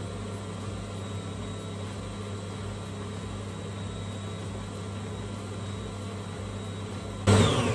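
Electric stand mixer's motor running steadily as it mixes cookie dough. Near the end it briefly gets louder, then winds down in a falling whine as it is switched off.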